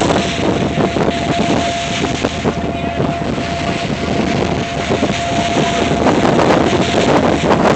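Wind buffeting the microphone over a loud, steady rushing noise, with a thin steady tone that stops about six seconds in.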